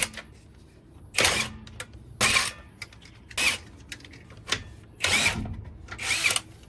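A power tool triggered in five short bursts of about half a second each, with a whirring spin-up in each burst, amid a few smaller clicks.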